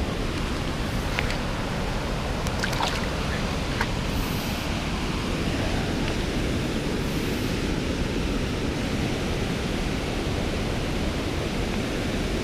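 Creek water rushing steadily over a shallow riffle, with a few light splashes and drips in the first four seconds as a small smallmouth bass is released by hand into the water.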